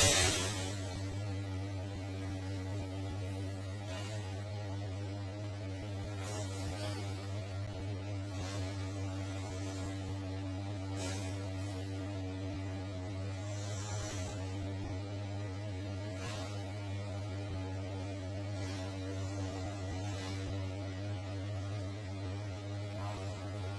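Steady electrical hum centred near 100 Hz with a stack of evenly spaced overtones, unchanging throughout. Faint soft rustles come in every two seconds or so.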